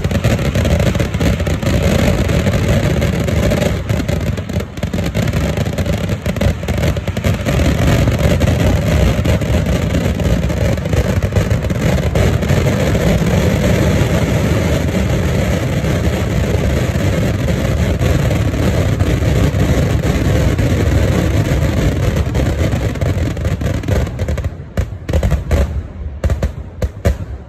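Vedikettu fireworks barrage: densely packed firecracker explosions merging into a continuous rumble. About 24 seconds in it thins out into separate bangs and fades.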